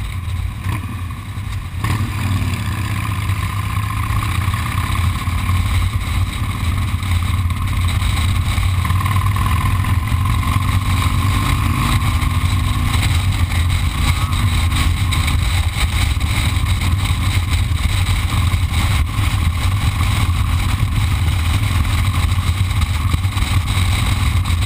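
Motorcycle running at steady road speed, heard from a camera on its handlebars: a continuous low engine rumble mixed with wind rush.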